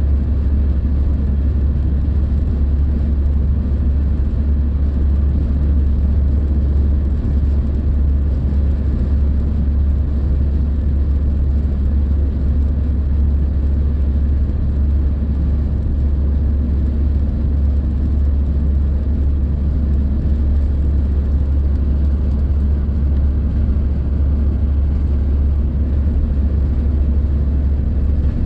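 Steady low rumble of a car cruising at motorway speed, heard inside the cabin: tyre and road noise with the engine underneath, even and unchanging throughout.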